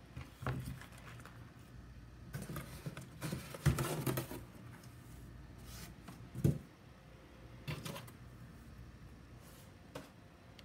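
Plastic food pouches and packets crinkling and rustling as they are handled on a table, busiest around the third and fourth seconds. A dull knock comes about six and a half seconds in, with a few lighter clicks around it.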